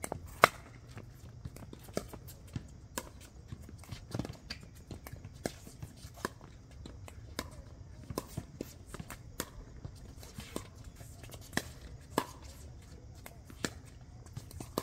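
Pickleball rally: sharp, irregular pops of paddles hitting a plastic pickleball back and forth, a little more than one a second, the loudest near the start.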